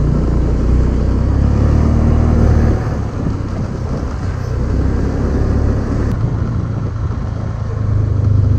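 Motorcycle engine running while the bike rides a short distance, easing off about three seconds in and picking up again near the end.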